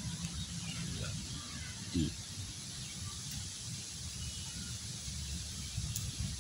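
Outdoor background: a steady low rumble with faint bird chirps, and a short low hum from a person about two seconds in.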